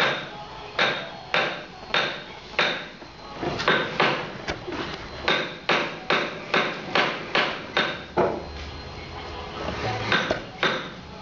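Woodcarving gouge being tapped into a wooden panel with a mallet: short, sharp knocks about two a second. About eight seconds in the knocks thin out for a couple of seconds, then resume.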